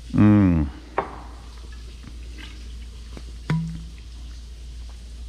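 A man's short wordless vocal sound, about half a second long, after a sip of tea. It is followed by a few light clicks of handling, the sharpest about three and a half seconds in as the cap comes off a plastic milk jug.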